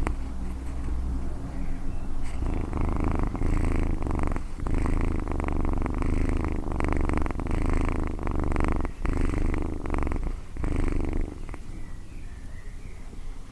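Domestic cat purring in a steady low rumble, in breath cycles of a few seconds with brief pauses between them. The purr stops about eleven seconds in, leaving a few faint high chirps.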